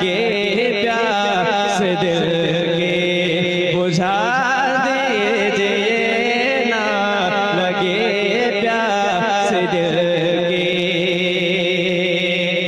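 A man singing a naat solo into a microphone over a PA, in long, wavering, ornamented phrases over a steady background drone.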